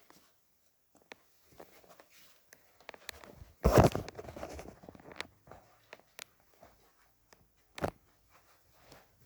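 Handling noises: scattered small clicks and rustles, with a loud knock about four seconds in and another sharp knock near eight seconds.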